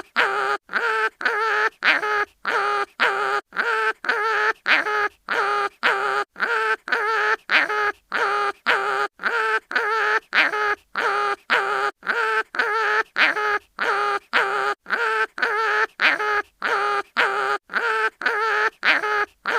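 Cartoon animal pain-cry sound effect looped over and over: a short, nasal, quack-like yelp about twice a second, each cut off cleanly before the next.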